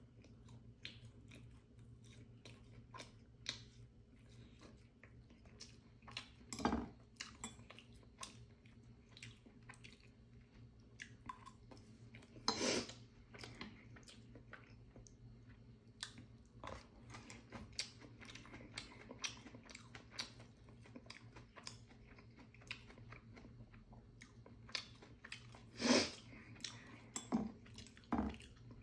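A person chewing food close to the microphone, with lip smacks and small clicks of metal chopsticks against the bowl and pan; a few louder, brief bursts stand out about a quarter, half and nine-tenths of the way through. A steady low hum runs underneath.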